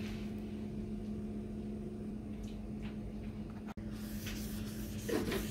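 A steady low hum, then from about two-thirds of the way in, a soft rubbing hiss of a hand wiping the non-stick plate of a Chefman 12-inch electric crepe maker, cleaning it after cooking.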